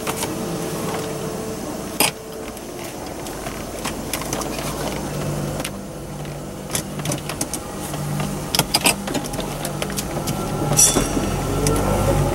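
Inside a car as it pulls away: a low engine hum that comes and goes and grows louder toward the end, with scattered clicks and knocks in the cabin.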